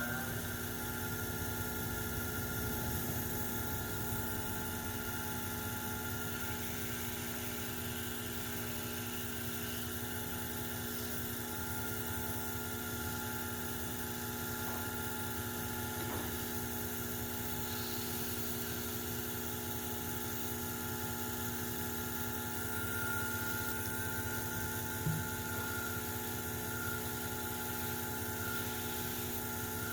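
An electric shop machine's motor running at a steady speed with an even hum, starting right at the beginning. There is a short tick about 25 seconds in.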